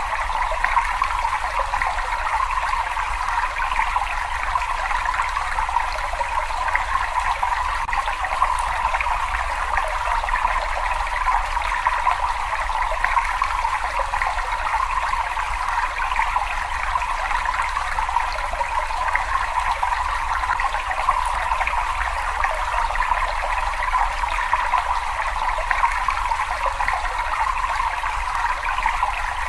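Water trickling and running in a cave, a steady even splashing that does not change, with a low rumble underneath.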